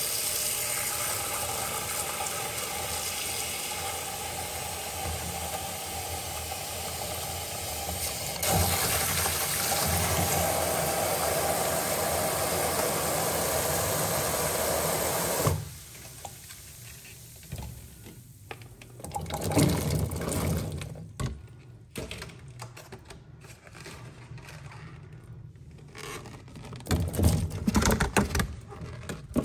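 Kitchen tap running steadily into a sink to rinse berries, a little louder about a third of the way in, then shut off suddenly about halfway through. After that come quieter scattered knocks and clatter of kitchen handling.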